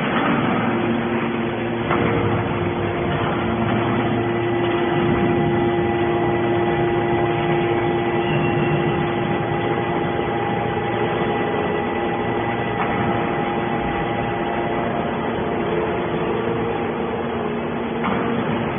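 Hydraulic scrap metal baler running: a steady machine hum with several held tones over it. A knock comes about two seconds in and again near the end.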